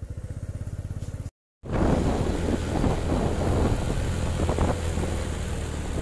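Motorcycle engine idling with a rapid, even pulse. After a brief gap a little over a second in, the motorcycle is heard under way: the engine runs louder and rougher, with a rushing noise of wind and road.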